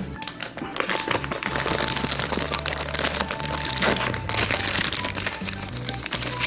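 Plastic cat-treat packaging crinkling as it is handled and opened, with irregular crackles throughout.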